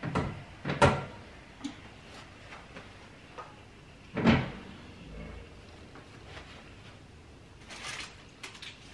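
Cast-iron doors of an AGA range cooker being opened and shut: a few separate metal clunks and knocks, the loudest about four seconds in, with more near the end.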